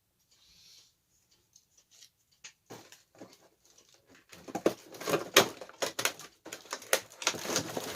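Cardboard packaging being handled as a toy truck is worked free of it: after a quiet start, a run of crackling, scraping and tapping comes in about halfway through and grows louder.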